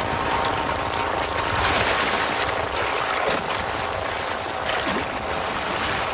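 Loud, continuous splashing and churning of river water, with many short splashes, as wildebeest thrash in a river under crocodile attack.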